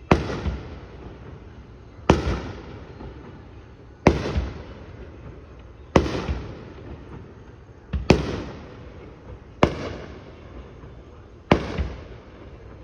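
Fireworks going off: seven loud bangs at roughly two-second intervals, each trailing off in a short fading echo.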